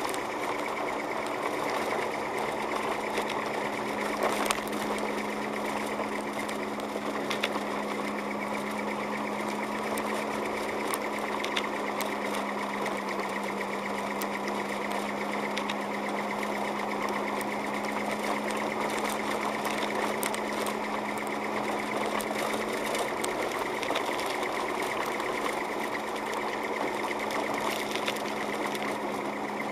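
Car engine and road noise inside the cabin while driving on a snow-covered road: a steady, unchanging hum with scattered light clicks.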